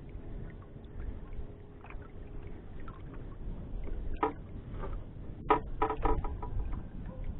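Water lapping against the hull of a small outrigger boat over a low steady rumble. A sharp knock comes about four seconds in, then a quick cluster of louder knocks around five and a half to six seconds.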